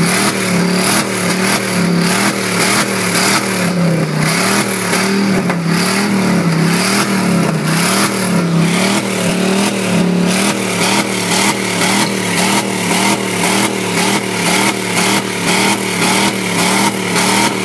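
Chevrolet 1500 pickup's 350 small-block V8 held at the rev limiter, the engine note rising and falling in a steady rhythm about once a second as the limiter cuts in and out.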